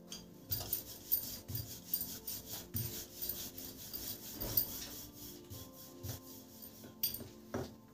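Rolling pin rolling out a ball of dough on a board: repeated rubbing strokes, about two a second, that ease off near the end.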